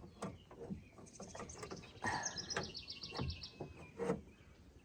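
Scattered light clicks and knocks of parts being handled while a car door handle is refitted, with the loudest knocks about two, three and four seconds in. A bird chirps in a fast, even trill from about a second in to past three seconds.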